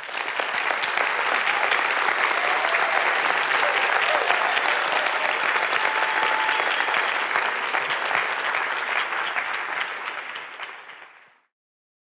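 Audience applauding steadily, fading out and stopping shortly before the end.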